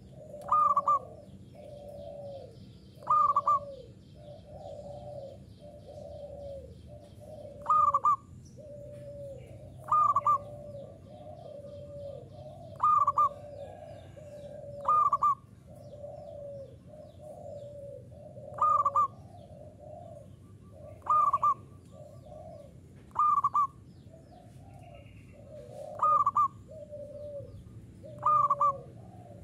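Local zebra dove (perkutut lokal) singing steadily. Each phrase opens with a loud, higher note and runs into a string of lower, falling coos, and the phrase repeats about every two to three seconds.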